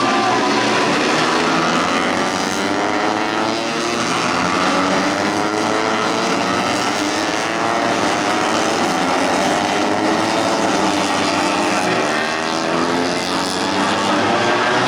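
Several tuned 150cc four-stroke underbone race motorcycles running at high revs, their engine notes overlapping and rising and falling as they accelerate and shift.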